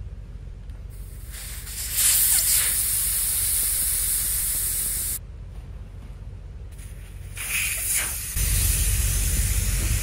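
Air hissing out of a Lexus GX470's all-terrain tire through the valve stem as the tire is aired down for traction in snow. The hiss starts about a second and a half in, drops away for a moment past the middle, and comes back louder near the end.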